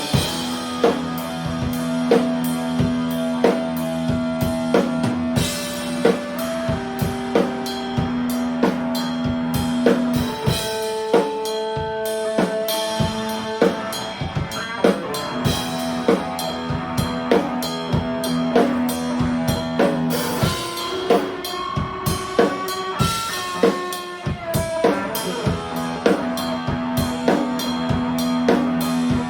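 Live band jamming: a drum kit keeping a steady beat with bass drum and rimshots, under an electric guitar through an amp holding sustained notes that change every few seconds.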